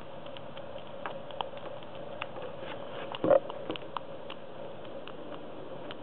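Lock pick working the pins of a 7-pin Best interchangeable core under tension: small irregular clicks and scrapes, with one louder knock about three seconds in.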